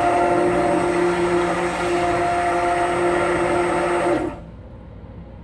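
Handheld immersion (stick) blender running steadily in thickening soap batter, bringing the lye and oils to trace; it switches off about four seconds in.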